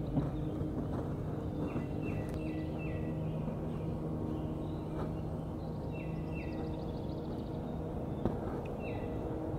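Outdoor river ambience: a steady low hum, with birds calling over it in short repeated high notes, a few times, and once in a high trill. A few soft clicks are scattered through it.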